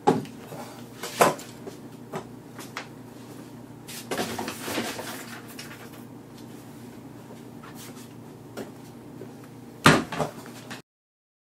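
Scattered knocks and clatter of hardware being handled and set down on a tabletop: a sharp knock at the start, another about a second in, a rough clattery stretch around four to five seconds, and the loudest knock near the end, over a steady low hum. The sound cuts off suddenly just before the end.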